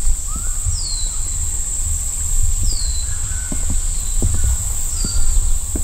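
Steady high-pitched drone of a chorus of crickets or katydids, with a bird giving short high chirps that slide downward, about one a second. Under it a steady low rumble of walking and wind on the microphone.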